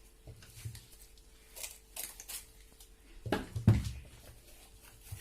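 Small kitchen containers of harissa being handled: scattered light clicks and rustles, then a louder knock as one is set down a little past halfway.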